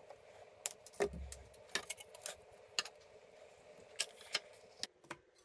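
Scattered light clicks and metallic clinks as a PC power supply's metal casing, wiring and replacement fan are handled, with flush cutters clipping off zip-tie ends.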